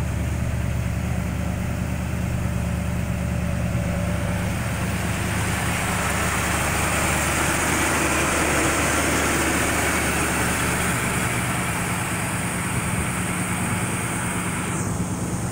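A 1964 Chevrolet Impala's V8, with Magnaflow dual exhaust, idling steadily. A higher rushing hiss swells in the middle and eases again near the end.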